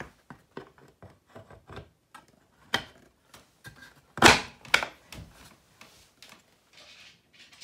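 Wooden drafting-table parts knocking and clicking as carriage bolts are pushed through the leg bracket's holes. There are scattered light taps throughout, and two louder wooden thunks about four and a half seconds in.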